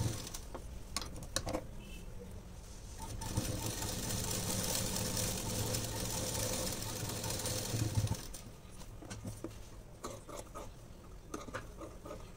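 Sewing machine stitching a seam in blouse fabric, running steadily for about five seconds in the middle. Before and after that run there are quieter stretches with scattered light clicks.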